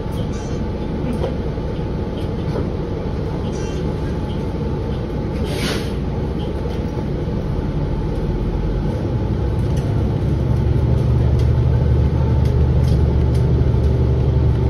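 A 2023 New Flyer XDE40 diesel-electric hybrid bus, heard from inside, running steadily while stopped. A short hiss of air comes about halfway through. From about two-thirds of the way in, the low drivetrain sound grows louder as the bus pulls away and gathers speed.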